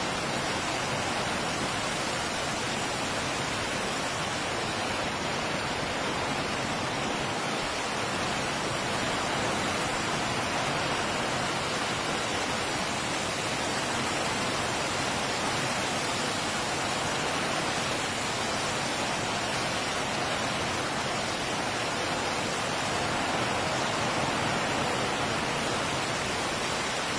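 Torrential rain pouring down, a steady, even rush of noise that does not let up.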